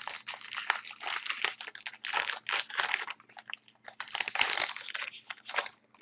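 Wrapper of a 2011-12 Upper Deck SP Authentic hockey card pack being torn open and crinkled by hand, a dense run of crackling rustles that dies away near the end.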